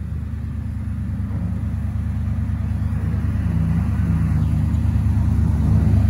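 Off-road vehicle engine running under load, a low steady rumble that grows gradually louder.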